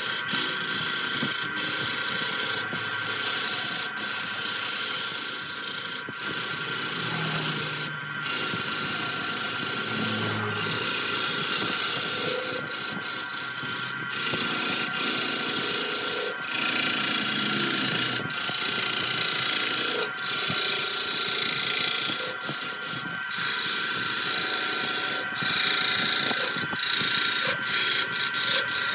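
Turning tool cutting into a large wooden blank spinning on a wood lathe: a continuous scraping hiss as shavings peel off, swelling and easing with a few brief breaks as the cut changes, over a steady whine.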